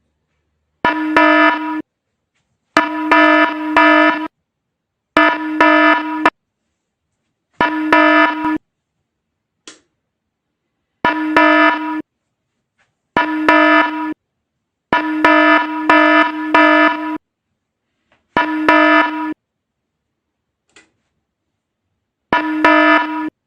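Alarm buzzer of a DIY laser-tripwire security alarm going off in nine separate blasts of a steady buzzing tone, each about one to two seconds long, at irregular intervals with silence between. Each blast marks the laser beam being broken and tripping the alarm.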